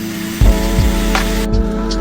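Background music with a steady drum beat over held chords. A hiss runs through the first second and a half and cuts off suddenly.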